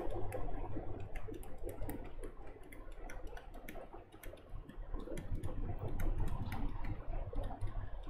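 Light, irregular clicks and taps of a stylus writing by hand on a pen tablet, over a low steady hum.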